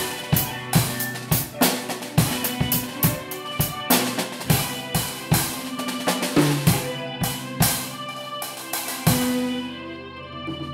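Music with a drum kit playing a steady beat over held notes; about nine seconds in the drums thin out and a long low note carries on.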